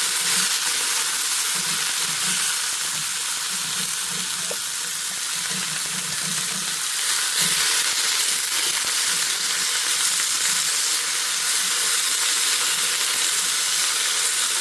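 Bok choy stir-frying in oil in a hot stainless steel frying pan: a steady loud sizzle, with light irregular knocks of the utensil stirring in the pan.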